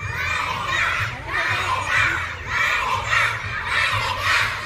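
A large crowd of children shouting and cheering together in high-pitched bursts that come again and again, about two a second.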